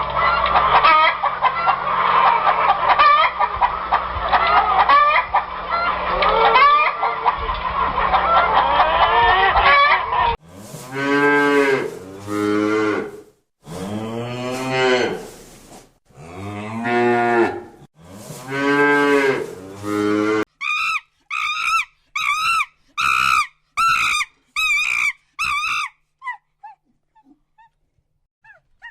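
A flock of poultry calling over one another, then four long cow moos, each swooping up and down in pitch. A fast run of about a dozen short goose honks follows.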